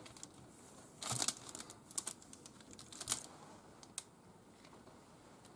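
Faint rustling of baking paper and soft clicks as hands lay thin slices of cured ham over cheese on a beef fillet, with a few short crinkling bursts, the strongest about a second in.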